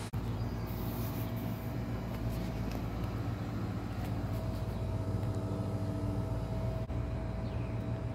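Steady low rumble of outdoor background noise, with a faint steady hum above it and no distinct events.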